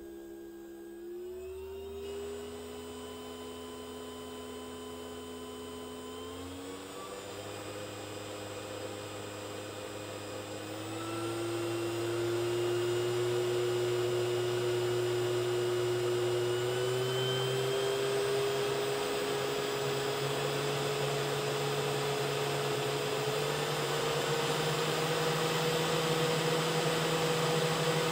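500W air-cooled DC spindle motor running with nothing on its shaft, its whine and fan whir stepping up in pitch in several stages as its speed is turned up toward about 10,000 rpm. It grows louder about eleven seconds in.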